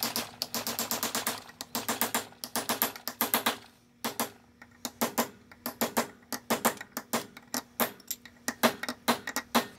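Hammer tapping a punch to knock over a locking tab beside the pinion nut of a Ford tractor pinion gear assembly held in a vise: quick, light metal-on-metal taps, rapid at first, then slower, spaced taps after a short pause about four seconds in.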